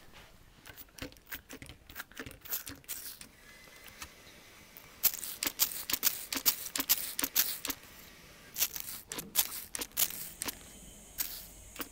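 A cleaning sponge handled right at the microphone: irregular crackles and scratchy rustles, sparse at first and much busier from about halfway through.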